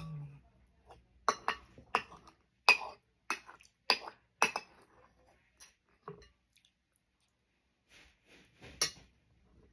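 Metal spoon clinking and scraping against a bowl while the last of the beans and cheese is scooped out. A quick run of sharp clinks in the first few seconds, then a few more near the end.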